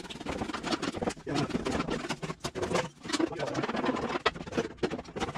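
Busy, irregular scraping and crackling with many quick clicks: hand work on the truck's rusted sheet metal and the loose rust and dirt behind the panel, with no power tool running.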